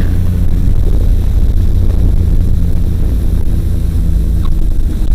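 Ultralight trike's engine running steadily as a loud, low drone, mixed with wind rushing over the microphone.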